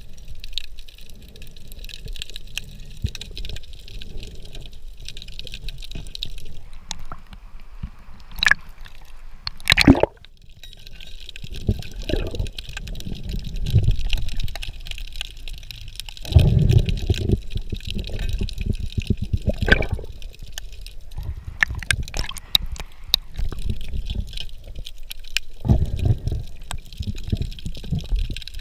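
Muffled underwater sound heard through a waterproof camera housing: water moving and gurgling around it, with uneven low swishing surges and scattered clicks, and one sharp crack about ten seconds in.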